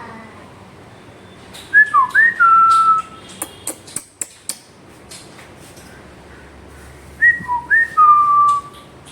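A pet parrot whistling the same short phrase twice: a few quick gliding notes and then one long held note. A few sharp clicks come between the two phrases.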